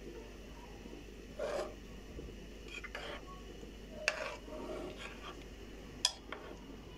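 Metal spoon scraping and stirring thick, stiff samanu paste in a stainless steel pot: several short scrapes, and two sharp clinks of the spoon against the pot, about four and six seconds in.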